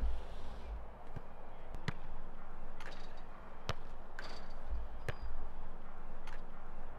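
Footballs being kicked and striking a rebound net, heard as several sharp knocks spread unevenly a second or so apart.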